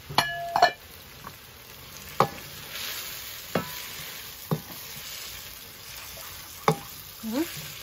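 Goat tripe frying in a black metal wok, with a steady sizzle while a wooden spoon stirs it and knocks sharply against the pan a few times. Near the start come two loud metallic clanks that ring briefly.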